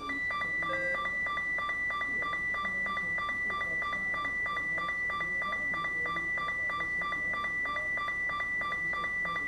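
Emergency alert attention tone from a broadcast test: a steady, high electronic tone that starts abruptly and holds without change, with a faint rapid pulsing beneath it.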